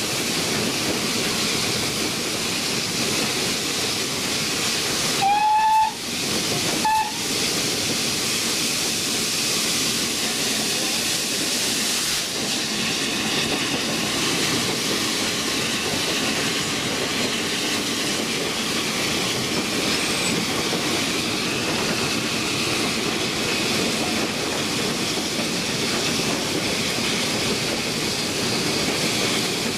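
Cab noise of GWR Hall class 4-6-0 No. 6990 Witherslack Hall under way, a steady rush and hiss of steam, wheels and wind. About five seconds in, the locomotive's whistle gives a blast of just under a second, then a short second toot.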